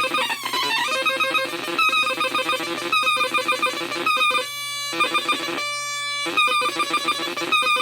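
Atari Punkr, an Atari Punk Console-style square-wave synth kit, putting out buzzy electronic tones that jump from pitch to pitch with clicks between steps. Twice near the middle it holds a steady, cleaner tone for about half a second.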